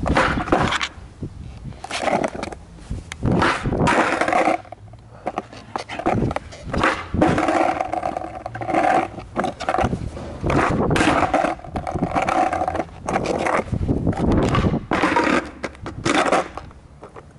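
Skateboard wheels rolling over rough asphalt with a grinding rumble, in stretches that start and stop. Many sharp clacks and knocks come from the board.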